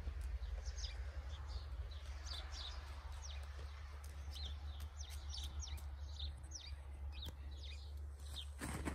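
Small birds chirping many times in short, high, downward-sliding notes, over a steady low rumble. A brief rustling noise comes near the end.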